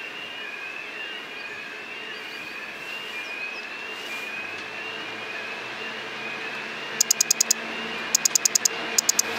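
VL80S electric locomotive with a passenger train approaching: rail and running noise with a low hum that grows as it nears, and a faint rising whine repeating about every second. Near the end there are three short runs of rapid, loud, shrill pulses.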